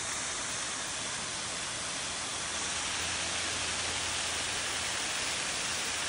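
Small waterfall cascading over rock ledges into a stream: a steady rush of falling water.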